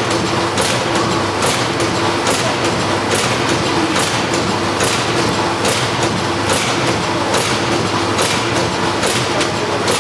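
Horizontal pouch filling and packing machine with an auger powder filler running on test: a steady mechanical clatter over a constant hum, with a sharp click about twice a second as it cycles.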